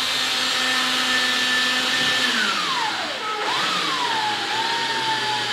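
Power drill driving a long screw at an angle through a window's nail flange and rigid foam into a wood stud: a steady motor whine that drops in pitch and stops about three seconds in, then starts again at once and settles to a lower pitch under load.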